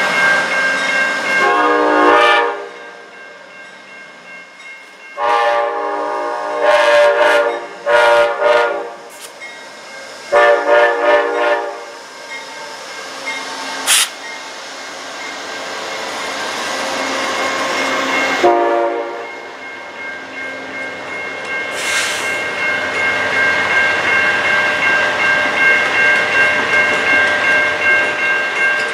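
Amtrak passenger train's locomotive horn sounding for a grade crossing: about five blasts in the first twelve seconds and one short one about two-thirds through, over a crossing bell ringing throughout. After the horn, the passenger cars roll past with a growing rumble and hiss, and there is a sharp click about halfway.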